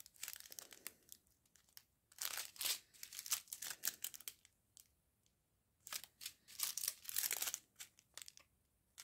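Small clear plastic bags of round diamond-painting drills crinkling as they are picked up and handled, in several short bursts with brief quiet gaps between.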